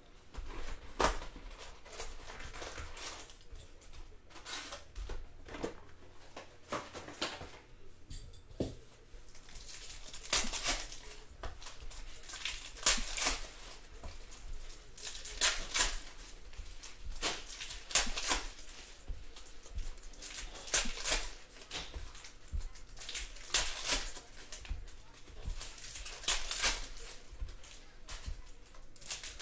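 Panini Prizm Fast Break basketball card packs being opened and handled: wrappers crinkling and tearing, with irregular sharp rustles and snaps of card stock.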